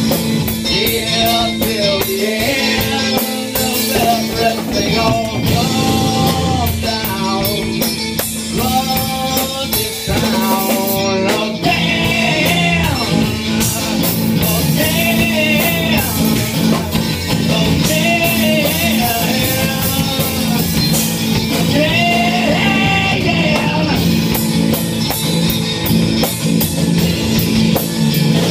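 Rock band playing live: electric guitar over a drum kit.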